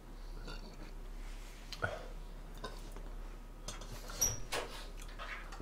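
Faint knocks and handling noises. About four seconds in, a short light metallic clink as the handle of a thin yellow aluminium (yangeun) ramen pot is taken hold of.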